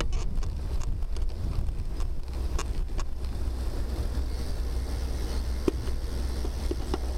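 Wind buffeting the microphone of a camera mounted on a moving bicycle: a steady low rumble under a faint hiss from the ride. Scattered clicks and knocks from the mount and bike, thickest in the first three seconds.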